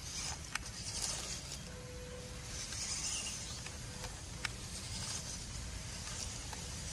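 MN90 RC crawler truck driving slowly through grass some way off: a faint, steady electric-motor whine for about two seconds in the middle, over a steady hiss and low wind rumble, with a few sharp clicks.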